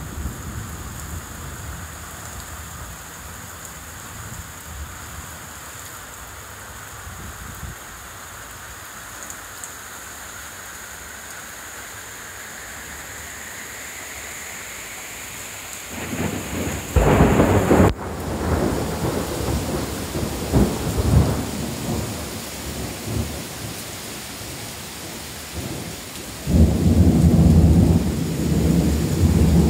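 Heavy thunderstorm rain pouring steadily, with two loud rumbling bursts: one about halfway through, the other starting near the end and lasting several seconds.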